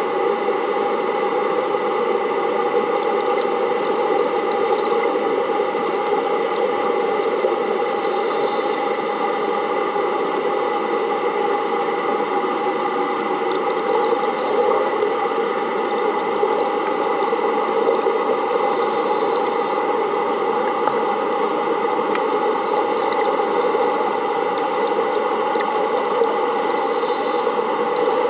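Steady underwater hum of the plant's running intake pumps, with a few steady tones in it. A brief hiss comes about every nine seconds.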